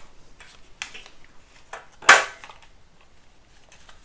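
Hard plastic parts being handled on a tabletop: a few light clicks, then one sharp clack about two seconds in as a plastic piece knocks down on the table.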